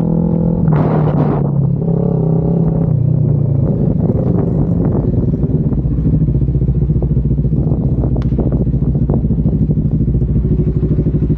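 Motorcycle engine running steadily while riding, with a brief rush of noise about a second in and a few light clicks and rattles.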